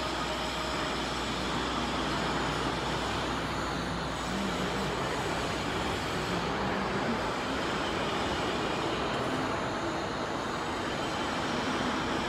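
Steady, even mechanical noise with a faint low hum from a running CNC oscillating-knife cutting machine.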